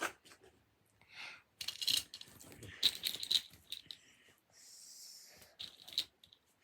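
Small fidget toys being handled and moved about: a run of clicks, clatters and rustles, with a brief hiss about five seconds in.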